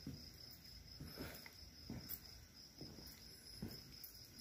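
Faint, steady high chirping of night insects such as crickets, with soft low thuds under it about once a second.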